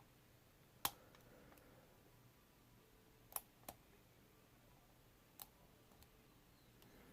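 A few faint, sharp clicks of a steel hook pick working the pins inside a lock, four isolated ticks spread over several seconds against near silence. The picker suspects he keeps oversetting the first pin.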